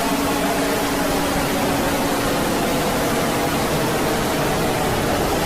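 Loud, steady static hiss from an emergency alert alarm broadcast, with a faint low droning tone underneath that fades out in the first couple of seconds.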